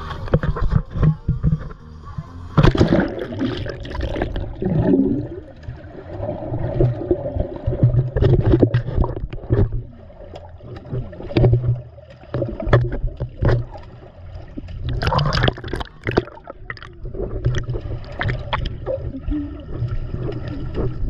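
Pool water sloshing, gurgling and splashing around an action camera held at and under the surface, with frequent sharp splashes and bubbling.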